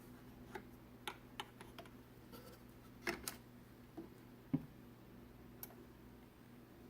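Light, irregular clicks and taps from a Technics SL-D2 direct-drive turntable being handled, about a dozen over five seconds, with a sharper knock about four and a half seconds in. A faint steady low hum runs underneath.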